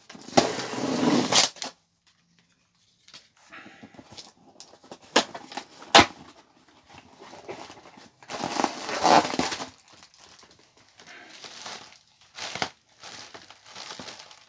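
Parcel packaging being torn open and rustled by hand, in two loud tearing bursts near the start and about two-thirds of the way through, with two sharp snaps about five and six seconds in.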